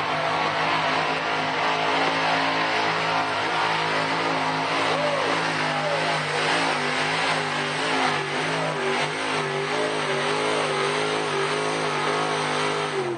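Pickup truck engine running hard at high, steady revs while pulling a weight sled in a truck pull; the revs waver in the second half and drop off at the very end.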